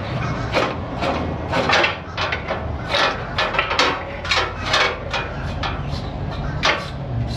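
Irregular sharp metallic clicks and knocks, a few a second, from a hand ratchet and tools working a bolt on a Ford E350's transmission held on a transmission jack, with a steady low hum underneath.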